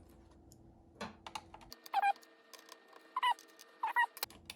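Screwdriver taking out the small screws that hold a radio's display screen: light clicks of the tool on the screws, with three short high squeaks about two, three and four seconds in.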